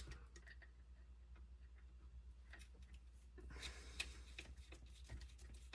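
Faint clicks and light scraping of small RC shock absorber parts being handled and fitted together, with a sharper click about four seconds in.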